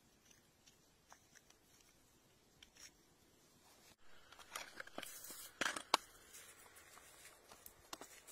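Faint clicks and gritty scrapes of stones and soil being handled close to the microphone, busiest and loudest about five to six seconds in.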